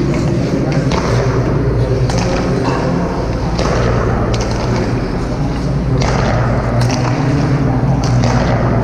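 Ice skate blades scraping and carving on rink ice, with several sharp clicks of hockey sticks and pucks, over a steady low hum.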